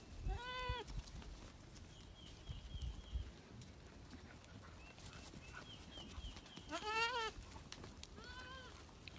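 Goats bleating. There is a short call at the start, then a louder, quavering bleat about seven seconds in, followed closely by a shorter one.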